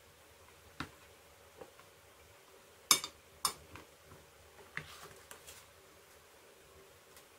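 Scattered sharp clicks and knocks of a kitchen knife against a plastic food container as banana is cut into chunks. The two loudest come about three seconds in, half a second apart, with lighter taps a couple of seconds later, over a faint steady hum.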